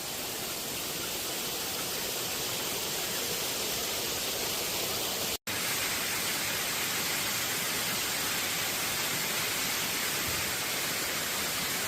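Steady rushing hiss of water falling over rocks at a waterfall, cut off for an instant a little over five seconds in.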